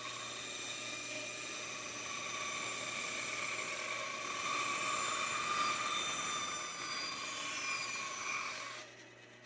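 Rikon 10-inch benchtop band saw (10-3061) with a half-horsepower motor running and cutting through a board, giving a steady whir with a low motor hum. The sound drops away shortly before the end.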